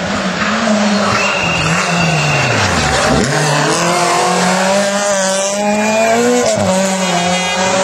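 Rally car engine dropping in pitch to a low point about three seconds in as it slows for a hairpin, then revving up hard as the car accelerates out, with a gear change near the end.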